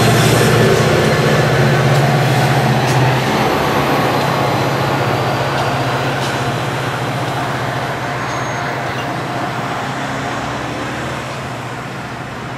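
Metra diesel locomotive and its train rolling away, the engine's low drone and the rail noise fading steadily.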